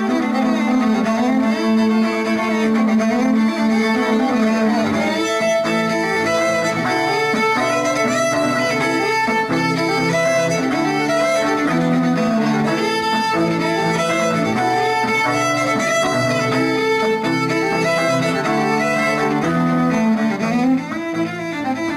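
Ensemble of violins and cellos bowing a tune together. A held low drone gives way, about five seconds in, to a moving bass line under the violin melody.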